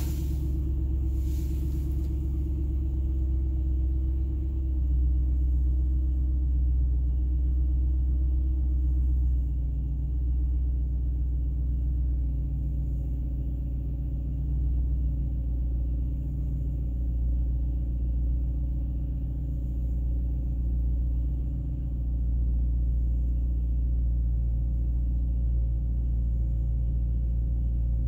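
BMW M3's V8 engine idling, heard from inside the cabin as a steady low rumble, with two short clicks right at the start.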